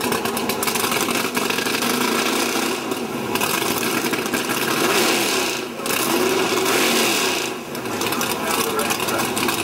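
Ford Mustang drag car's engine running at the starting line, revved so its pitch rises and falls, with a brief drop in level about halfway through and again later.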